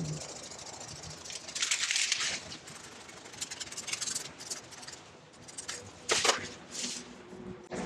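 Leafy kumquat branches rustling and scraping in short, irregular bursts, the loudest about two seconds in and again about six seconds in.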